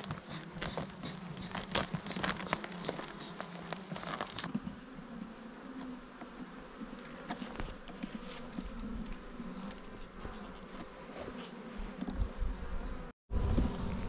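Swarm of honeybees buzzing over an open wooden hive, with scattered clicks and scrapes from a hive tool prying at the frames. The sound cuts out briefly near the end.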